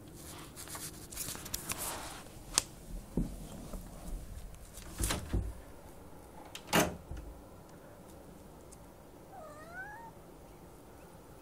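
Rustling and a few sharp knocks as an interior door is handled and opened, the loudest knock about two-thirds through, then a cat gives a short meow near the end.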